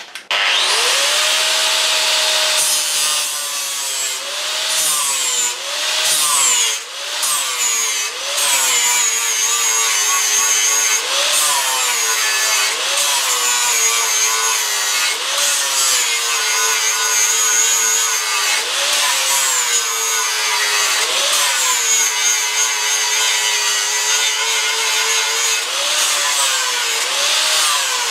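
Metabo 1700-watt angle grinder switched on and grinding a weld seam flat on steel plate with a Klingspor SMT 324 domed grit-40 flap disc. The motor's pitch sags each time the disc is pressed into the steel and picks up again as the pressure eases, every couple of seconds.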